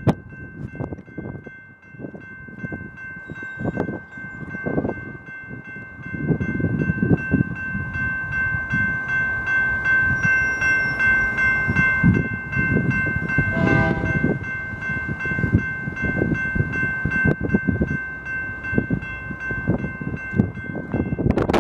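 Railroad grade-crossing warning bells ringing steadily, the signal for an approaching train. Under them, a low rumble grows louder from about six seconds in.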